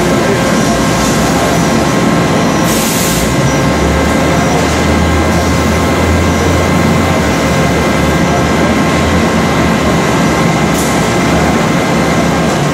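Steel coil-processing line running loud and steady as flat sheet steel feeds off the leveler and over the conveyor, with a steady machine whine through it and a low hum that swells for a few seconds. A short hiss comes about three seconds in.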